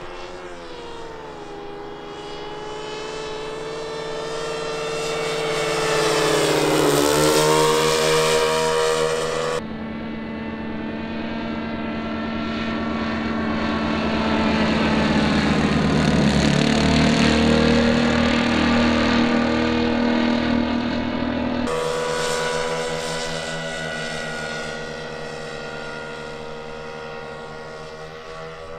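Twin four-stroke glow engines of a radio-controlled Cessna 337 Skymaster model, an OS 95 pulling in the nose and a Magnum 91 pushing at the rear, running in flight. It swells into two loud passes, the pitch dropping as the plane goes by each time. The sound jumps abruptly twice where passes are cut together.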